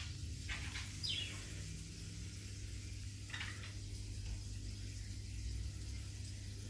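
Steady low hum of aquarium equipment, with a few short bird chirps falling in pitch near the start and once more about three seconds in.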